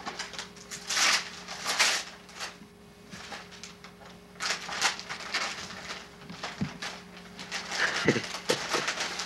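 Gift wrapping paper being torn and crinkled open by hand in repeated bursts of rustling and ripping, over a faint steady hum.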